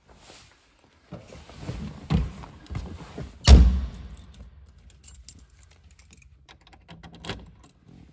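Car keys jangling and clinking in the cabin, with one heavy thunk about three and a half seconds in, then scattered light clicks as the ignition key is handled before the engine is started.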